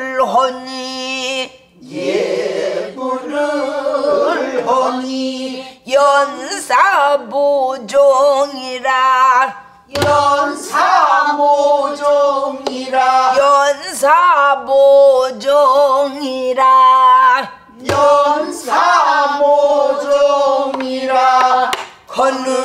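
A woman singing a danga, the short song sung before pansori, in husky pansori voice with wide vibrato, in long phrases broken by breaths. She keeps time herself on a buk barrel drum, with sharp strokes about ten and eighteen seconds in.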